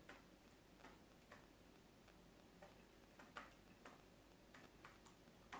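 Faint, irregular clicking of laptop keys being typed, about ten sparse keystrokes over a low steady room hum.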